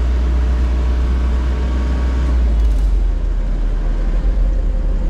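Diesel engine of a rotating telehandler running with the throttle opened while the boom is swung, a loud steady low drone heard from the cab. The low drone shifts in tone about halfway through.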